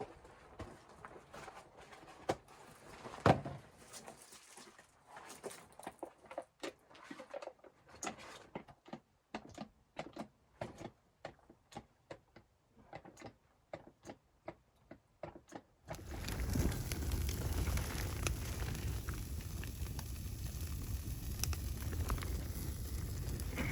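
A run of short, sharp clicks and knocks at an irregular pace, then about two-thirds of the way in an abrupt change to a steady rushing noise with a low rumble and a few faint crackles.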